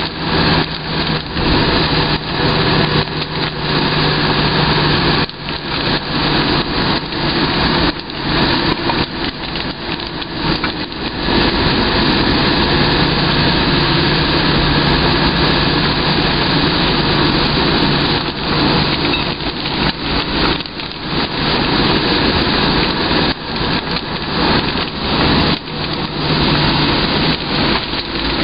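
A vehicle driving in the rain: a loud, uneven rush of wet-road, rain and wind noise, full of brief crackling dropouts, over a steady engine hum.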